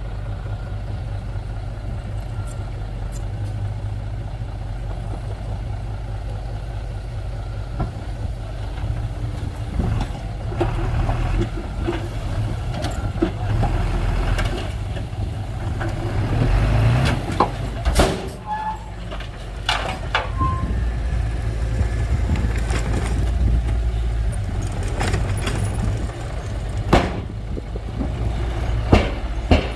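Diesel engine of heavy earthmoving machinery running steadily, with intermittent sharp metal knocks and clanks, the loudest about 18 seconds in and near the end.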